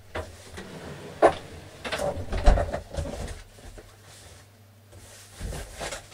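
A scatter of knocks, clicks and heavier thumps of someone handling and carrying a large box, the sharpest knock a little over a second in and the heaviest thumps between two and three seconds.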